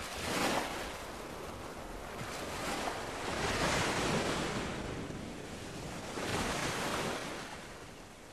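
Rushing noise of wind and lake water lapping, swelling and easing three times.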